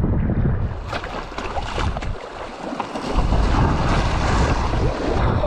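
Sea waves splashing and washing over shore rocks and against the side of an inflatable belly boat, with wind rumbling on the microphone.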